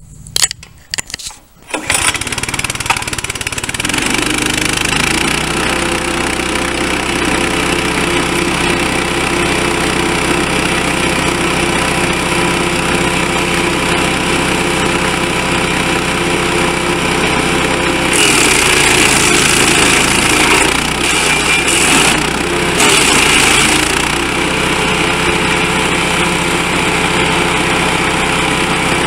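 A Lumag HC1000EW wood chipper's 196cc pull-start petrol engine is cranked with uneven jerks of the cord and catches about two seconds in. It then runs steadily. The sound turns harsher and brighter for a few seconds about two-thirds of the way through.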